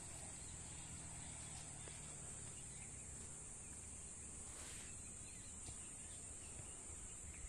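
Faint outdoor ambience dominated by a steady, high-pitched drone of insects chirring without a break.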